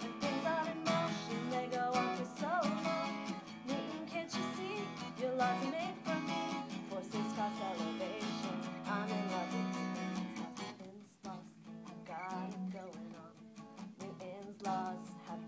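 Steel-string acoustic guitar strummed in a steady rhythm, with a woman singing along. The singing stops about ten seconds in and the strumming carries on more quietly.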